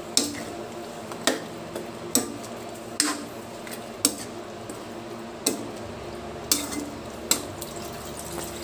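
Metal spoon knocking and scraping against a metal wok while stirring pork adobo, about one clank a second, each with a short metallic ring.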